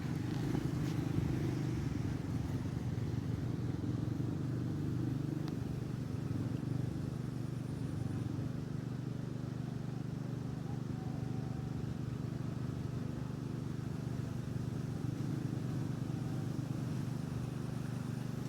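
A small engine running steadily at an even speed, a low drone with no change in pitch.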